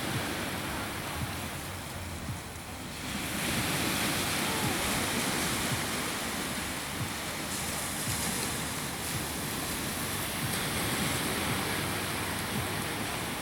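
Ocean surf washing onto the beach, a steady rush with wind, easing briefly about two seconds in.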